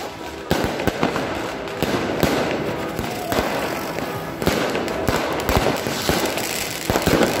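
Aerial fireworks going off: a dense run of overlapping bangs and crackles.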